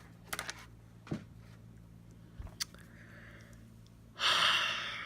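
A few scattered light clicks and taps, then a loud breathy hiss about four seconds in that fades out within a second.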